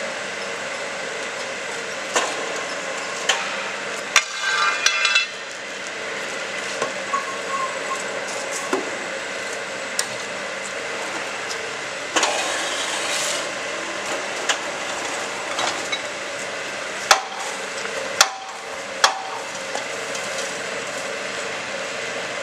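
QTJ4-26A concrete block making machine running: a steady mechanical drone broken every few seconds by sharp metal clanks and knocks. A short ringing rattle comes about four seconds in, and a hiss about twelve seconds in.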